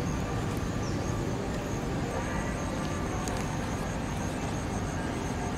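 Outdoor background noise: a steady low rumble, with a faint, steady high-pitched buzz above it and a brief high chirp about three seconds in.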